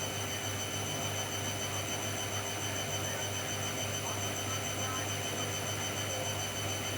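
Hoover front-loading washing machine in its spin phase, its drum motor running steadily with a constant low hum and a faint high whine.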